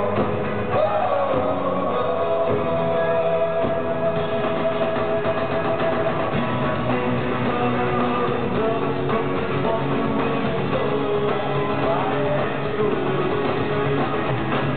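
Live rock band playing in a large arena, with singing and guitar, heard from among the audience.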